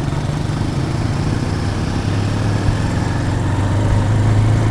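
Bajaj Pulsar 220's single-cylinder engine pulling the motorcycle up a steep climb: a steady low drone that grows a little louder toward the end.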